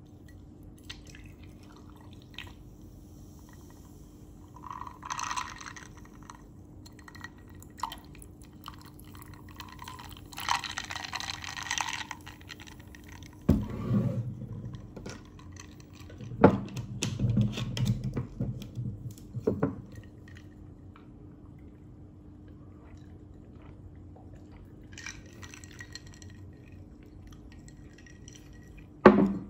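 Water poured into a drinking glass for a second or two, with scattered handling noises and a few knocks of things set down on a wooden tabletop, the sharpest near the end.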